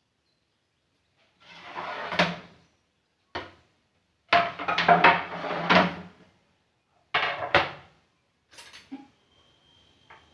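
Handling noises: a few separate bouts of knocking and clattering, with rustling, as objects are moved and set down, each lasting up to a second or two.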